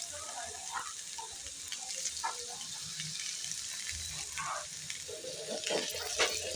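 Beef and lentil kofta balls shallow-frying in oil in a nonstick pan: a steady sizzle with scattered crackles, growing louder and busier in the last second or so.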